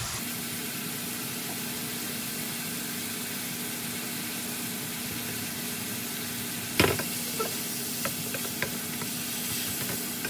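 Soy-glazed lotus root slices sizzling in a pan as the sauce reduces, a steady hiss. About seven seconds in, a wooden spatula knocks sharply against the pan, followed by a few light clicks as the slices are stirred.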